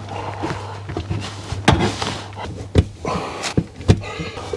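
Hand tools knocking and clicking against a kitchen cupboard carcass as the electrician works on the cable with pliers: several sharp knocks, over a steady low hum.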